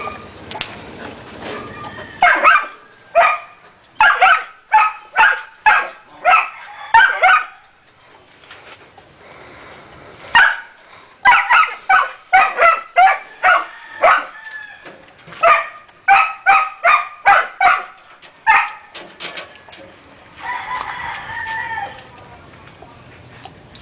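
Chickens calling: loud short calls in quick runs of about two a second, with a single longer, crow-like call near the end.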